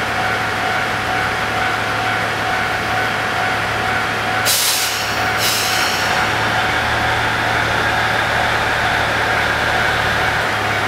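KiHa 110-series diesel railcar running at the platform, its engine a steady low drone. About four and a half seconds in comes a loud hiss of compressed air released twice, and then the engine's drone grows as the train begins to move off.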